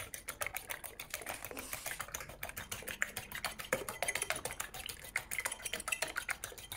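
A metal fork beating raw eggs in a ceramic plate: rapid, even clicking of the fork against the plate, many strokes a second.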